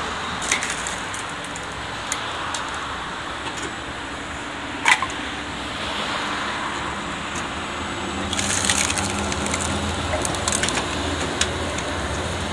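Wood-splitting machine's blade chopping blocks of wood into kindling: sharp cracks and splintering, the loudest about five seconds in, and a quick run of cracks around eight to nine seconds.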